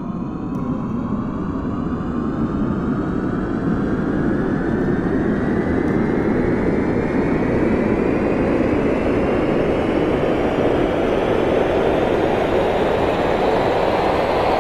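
Aeroplane engines powering up for takeoff: a whine climbing steadily in pitch over a roar that swells during the first few seconds and then holds loud.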